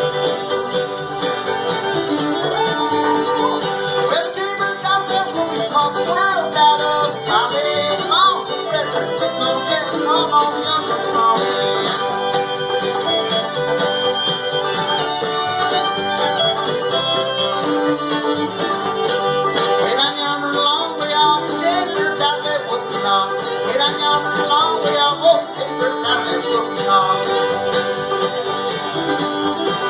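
Live band playing an instrumental fiddle tune, the fiddle leading, with no singing.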